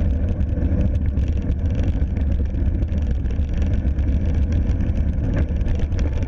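Steady wind buffeting and rumble on the microphone of a camera riding along on a cross-country mountain bike, with small rattles and clicks from the bike over the trail.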